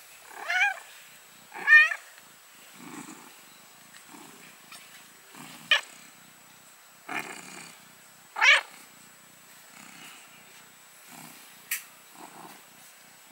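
Cats crying out in short, loud, wavering high-pitched calls, four times over, with soft low sounds in between and a sharp click near the end.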